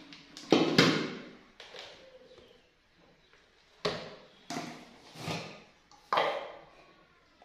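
Hard plastic knocks and clunks on a kitchen counter: a blender jug set back onto its base with two loud clunks about half a second in, then several lighter knocks as a plastic jar and its lid are handled.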